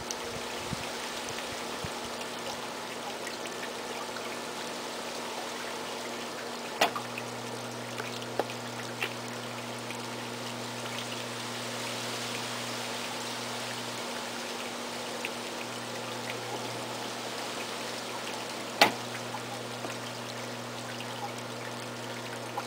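Steady rushing hiss like running water, with a low steady hum underneath. A few sharp clicks come through, about 7 and 8 seconds in, and the loudest near 19 seconds.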